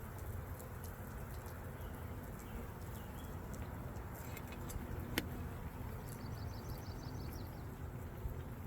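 Wooden beehive frames being pushed together in the hive box, giving small scattered clicks and one sharp knock about five seconds in, over a steady low rumble.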